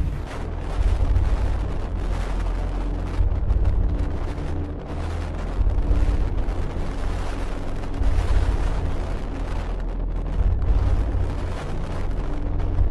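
Storm wind buffeting the microphone over heavy surf, a deep rumble that swells and eases every two seconds or so.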